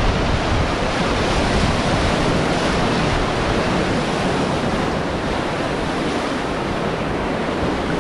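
River whitewater rushing around the raft, a dense steady noise, with wind buffeting the microphone as a low rumble that eases about halfway through.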